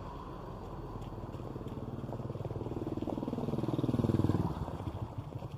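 Engine of an NPM intercity bus driving past, growing louder to a peak about four seconds in, its note falling in pitch as it goes by, then fading away.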